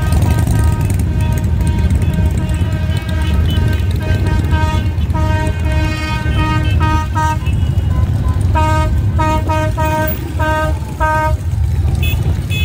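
A vehicle horn honking over a steady low rumble of running engines. It sounds in many short beeps in an uneven rhythm, ending with a quick run of about six beeps near the end.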